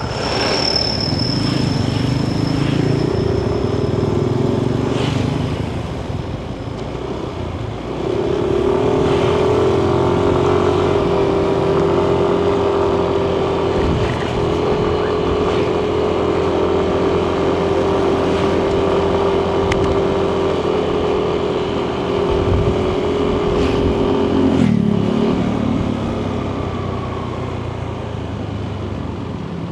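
Yamaha Nmax 155 scooter's single-cylinder engine running under way, heard from the rider's seat with road and wind noise. The engine note eases off briefly, then climbs and holds a steady cruising pitch, and drops away as the scooter slows near the end.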